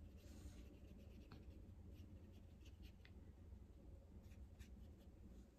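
Faint, soft scratching swishes of a watercolor brush stroking across paper, in short scattered strokes over a low steady room hum.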